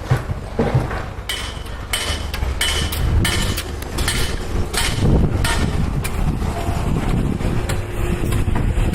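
Repeated hammer blows with a metallic ring, roughly one or two a second, thinning out after about six seconds, over a steady low rumble.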